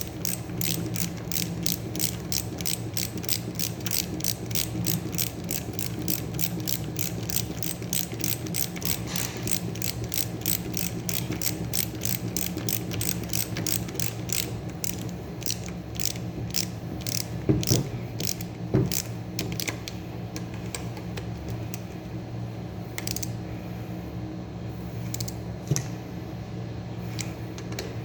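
Ratchet wrench clicking in steady strokes, about three clicks a second, thinning to scattered clicks about halfway through, over a steady low hum.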